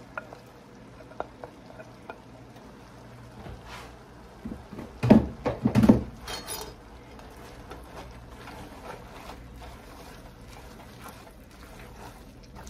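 A spoon and fork stirring and tossing spaghetti through a thick egg-and-cream carbonara sauce in a nonstick skillet: soft wet stirring with small clicks of the utensils on the pan, and two louder knocks about five and six seconds in. The constant stirring keeps the eggs in the sauce from scrambling.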